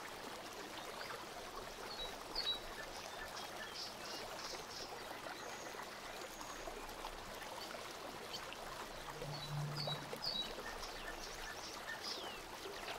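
Steady faint hiss of background room noise on a desk microphone, with a few faint high chirps and light ticks scattered through it, and a brief low hum about nine seconds in.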